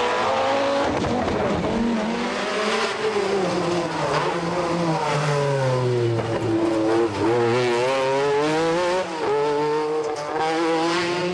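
Group B rally car engine revving hard, its pitch rising and falling several times.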